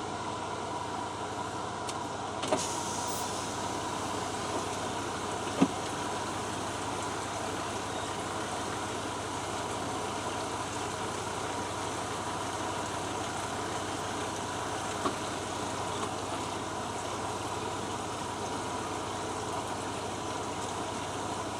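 Range Rover P38's 4.6-litre V8 running steadily on the move, with three short sharp knocks, the loudest about five and a half seconds in.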